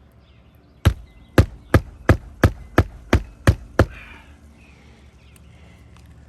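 Hammer driving a roofing nail into an asphalt shingle: nine quick, sharp strikes at about three a second, then they stop.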